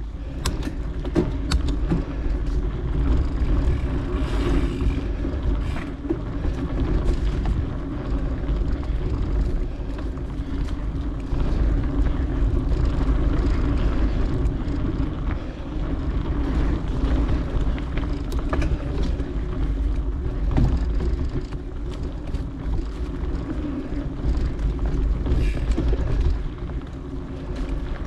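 Mountain bike ridden along dirt singletrack: a continuous rumble of tyres on the trail and wind on the camera microphone, with scattered clicks and rattles from the bike.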